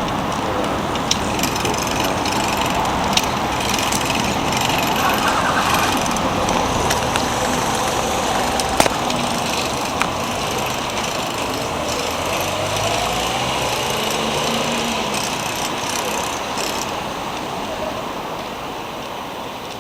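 Steady road traffic noise with a low rumble, and a few sharp clicks.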